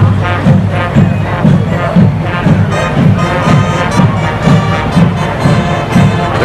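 Marching band playing as it marches: brass and sousaphones over a steady drum beat.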